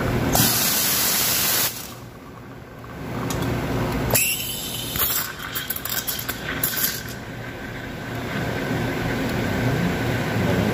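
Espresso machine steam wand: a loud hiss for just over a second as the wand is purged, then, about four seconds in, steaming milk in a steel pitcher, a hiss broken by quick sputters as air is drawn into the milk for about three seconds, settling into a steadier, quieter hiss as the milk is heated.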